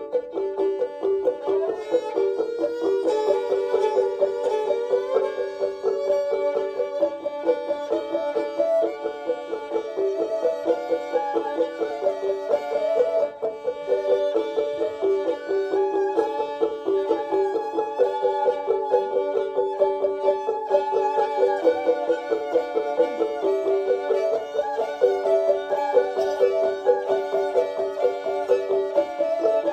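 Live acoustic music: a quick, repeating twanging melody over steady droning notes, with high overtones that slide up and down above it.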